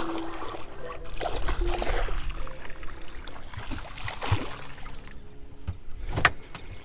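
Water sloshing and splashing at a small boat's hull while a hooked trout is played to the boat, with a few sharp splashes or knocks near the end.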